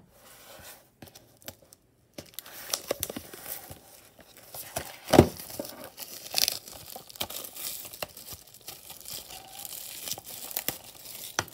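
Plastic shrink wrap being torn and peeled off a DVD case, crinkling and crackling, with a loud snap of tearing about five seconds in.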